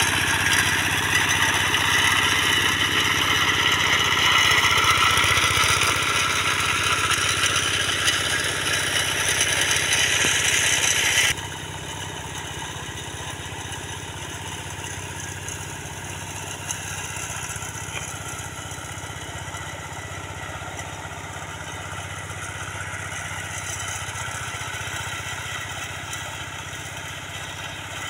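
Engine of a walk-behind hand tractor running steadily while tilling the soil at a distance. For the first eleven seconds a louder high hiss lies over it, then cuts off abruptly, leaving the engine's steady hum.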